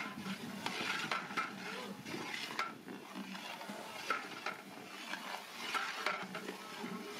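Long metal ladle stirring in a large aluminium pot, scraping and knocking against the metal at irregular intervals, over the steady sizzle of sliced onions frying in hot oil.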